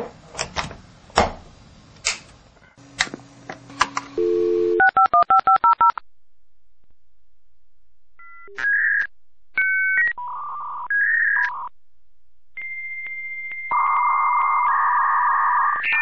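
Dial-up modem connecting. Several clicks give way to a low dial tone, then a quick run of touch-tone dialling beeps and a string of beeps at changing pitches. A steady high answer tone follows, joined near the end by the hissing handshake noise.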